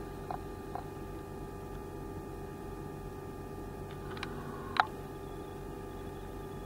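Steady electrical hum of several held tones, with a few light clicks and one sharper click a little under five seconds in.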